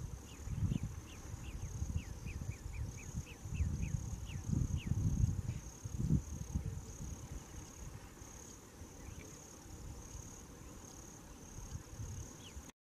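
A high, steady insect trill pulsing about once a second, with faint short downward-sliding bird chirps in a quick series over the first few seconds and once or twice later. A low gusty rumble, the loudest part, runs underneath.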